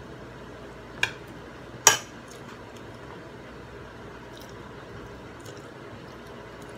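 A metal spoon clinking twice against a ceramic dinner plate, about a second in and again a second later; the second clink is louder and rings briefly. Faint small clicks of eating at the plate follow.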